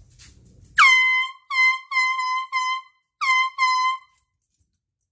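Small handheld air horn sounding in six short blasts over about three seconds, the first longest, each a loud high horn note that dips briefly in pitch as it starts.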